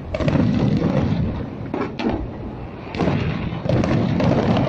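Fireworks shells bursting: a run of booms, several in close succession, each followed by a low rolling rumble.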